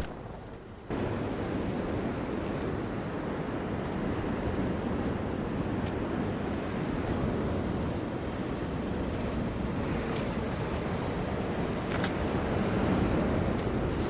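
Sea surf: a steady wash of breaking waves that starts abruptly about a second in.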